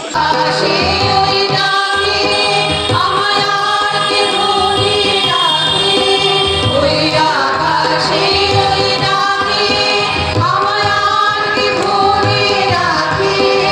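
Music: women's voices singing a melodic song together over a regular low drum beat.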